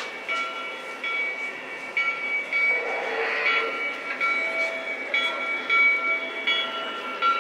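Lionel-type model trains running, their horns and whistles sounding in short repeated blasts, each a chord of several steady notes, over a light rattling hiss with no deep rumble.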